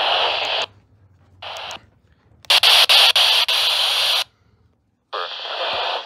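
Static hiss from a Midland NOAA weather radio's speaker, cutting off under a second in and coming back briefly. It returns as a louder stretch of static with a few clicks from about two and a half to four seconds, then starts again near the end.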